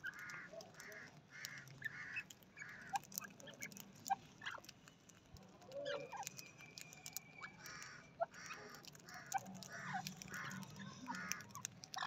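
Captive grey francolins and budgerigars calling together: runs of short repeated calls at about two a second, scattered sharp chirps, and a held whistle-like note for a couple of seconds around the middle.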